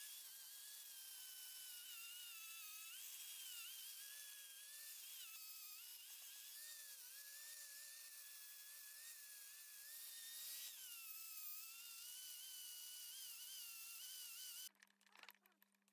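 Electric angle grinder whining as it grinds rusty steel vise parts, its pitch sagging and recovering as the disc bites into the metal. It cuts off suddenly near the end, leaving a few faint clicks.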